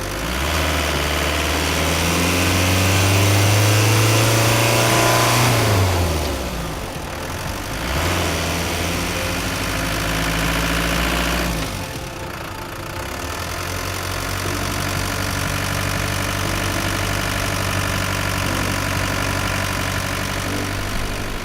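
Renault Master II van's diesel engine revving up and holding for several seconds before dropping back, rising again briefly, then settling into a steady idle for the rest of the time.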